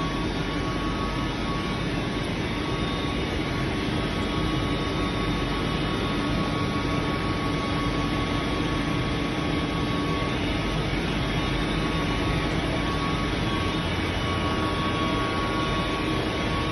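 2008 COMEXI FI 3010 CNC ten-colour central-impression flexo printing press running in production, its web of film travelling over the rollers: a steady mechanical hum and rush of air, with a constant high whine over it.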